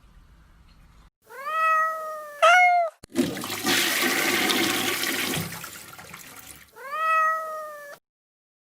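A cat meows, first a long call and then a short higher one. A toilet then flushes with a loud rush for about three and a half seconds, fading out. The cat meows once more near the end.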